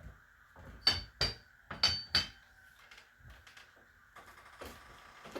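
Four sharp metallic clanks with a short ring, two pairs in the first half, then a few softer knocks: a steel tool working against the threaded nut on a tractor hydraulic cylinder as it is tightened.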